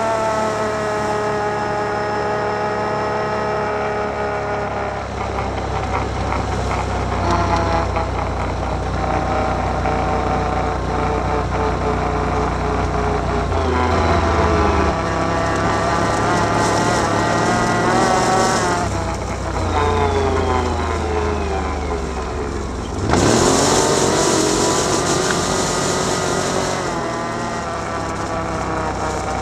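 Can-Am Outlander 1000 ATV's V-twin engine running under way, its pitch rising and falling repeatedly as the throttle is opened and eased. About two-thirds of the way through, the revs climb sharply and a bright hiss joins the engine for a few seconds.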